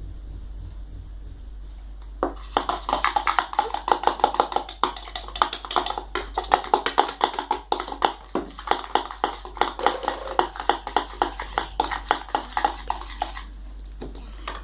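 Borax-free glue slime being mixed vigorously: a fast, dense run of sticky clicks and taps that starts about two seconds in and stops shortly before the end.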